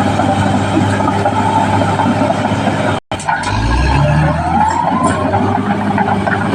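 A Caterpillar D6R XL bulldozer's diesel engine running steadily. There is a brief cut to silence about three seconds in. After the cut the engine note rises, and a higher whine climbs in pitch.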